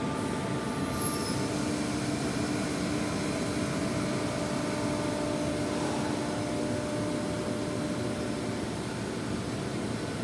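Steady drone of running factory machinery: a constant rumble with a steady hum over it.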